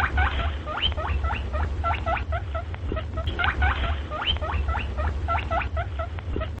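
Rabbit squeaking: a rapid run of short high squeaks, several a second, over a steady low hum, cutting off suddenly at the end.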